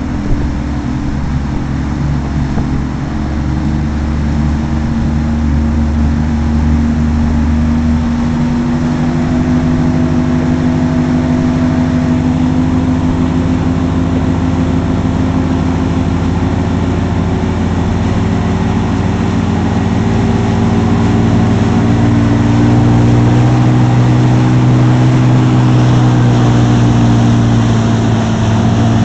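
Inboard wake boat's engine running steadily under way at about 16 mph, a constant drone whose pitch shifts slightly about eight seconds in and again near twenty seconds, over a steady hiss of churning wake water.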